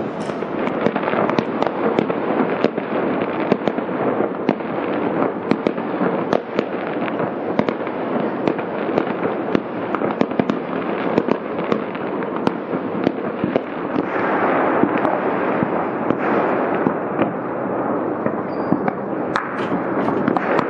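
New Year's fireworks and firecrackers going off all over the city at once: a continuous mass of overlapping bangs and crackle, with many sharp pops several times a second.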